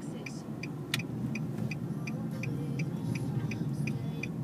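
Car running along a road, heard from inside the cabin as a steady low rumble, with a light regular ticking at about three ticks a second. One sharp click about a second in.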